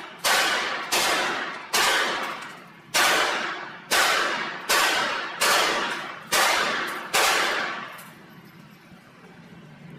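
Nine single shots from a semi-automatic .22 LR pistol at a steady pace of roughly one a second, each ringing out in a long echo under a concrete ceiling. The firing stops about seven seconds in, leaving a faint low hum.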